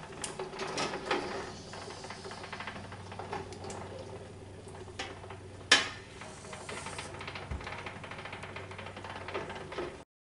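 Clinks and knocks of tongs and glass canning jars against a stainless steel stockpot as hot jars are lifted out of the water-bath canner, over a steady hum and faint hiss, with one sharp clack about halfway through.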